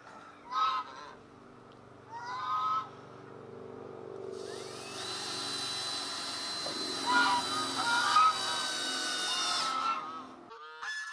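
Geese honking twice, then a cordless drill runs for several seconds: its whine rises as it spins up and holds steady and high. More goose honks sound over the drill.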